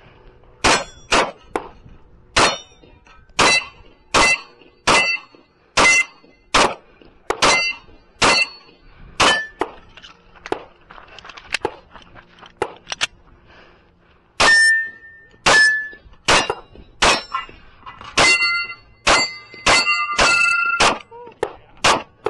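Glock 20SF 10mm pistol fired in a long string of shots, many followed by the ringing of struck steel targets. The shots come in quick pairs and runs, with a quieter stretch of small clatter about two-thirds of the way through.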